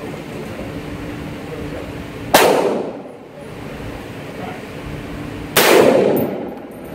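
Two rifle shots from a DPMS AR-10 in .308, about three seconds apart, each a sharp crack followed by a ringing echo off the walls of an indoor range.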